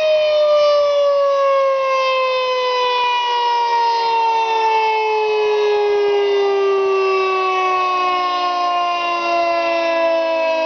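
Federal Signal 3T22 three-tone outdoor warning siren sounding a chord of several tones, all sliding slowly and steadily downward in pitch.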